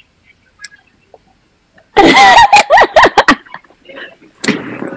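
Quiet for about two seconds, then a burst of loud, high-pitched human laughter, with a smaller burst of laughter near the end.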